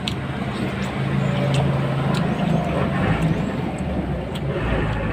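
Motor vehicle on the road with its engine running steadily; a deeper rumble comes in near the end.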